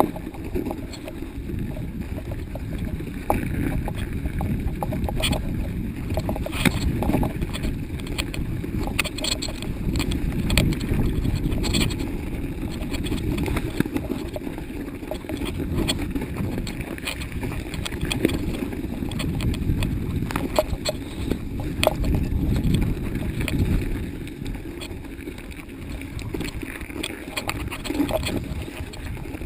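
Mountain bike ridden over a snowy forest trail, heard from a camera mounted on the rider or bike: a continuous low rumble from the ride, with frequent sharp clicks and knocks as the bike rattles over bumps.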